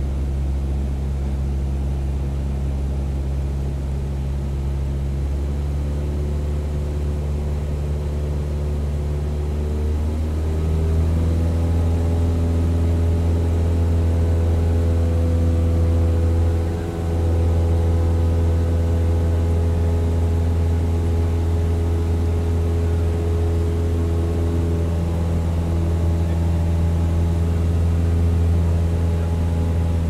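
Aircraft engine drone, steady and loud. Its pitch steps up slightly and it gets a little louder about ten seconds in, with a brief dip in level about seventeen seconds in.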